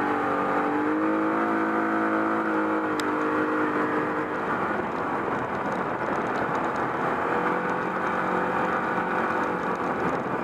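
Engine of a side-by-side off-road vehicle (UTV) running while it drives over sand. Its pitch eases off over the first few seconds and climbs again later as the throttle changes, over a steady rushing noise.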